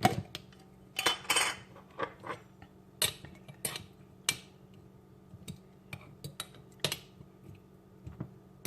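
A metal utensil clinking and scraping against a glass jar while fishing pickled cabbage out of it: a scatter of separate sharp clinks, some ringing briefly.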